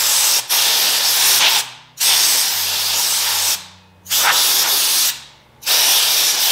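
Can of compressed air spraying in four long hissing blasts, each one to two seconds with short gaps between, blowing dust out of a laptop's cooling fan.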